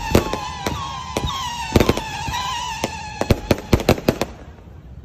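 Fireworks going off in a fast, irregular string of sharp bangs, over a wavering whistle-like tone. Both stop about four seconds in, leaving only a faint hiss.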